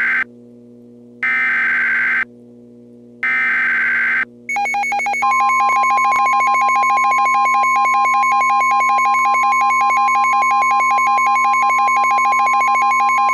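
Emergency Alert System SAME header: short bursts of screeching digital data tones, each about a second long with a second's gap between them. About four and a half seconds in, the weather radio warning alarm starts: a steady high tone layered over a fast-pulsing tone, with a low steady drone underneath. This signals that a new warning is being issued.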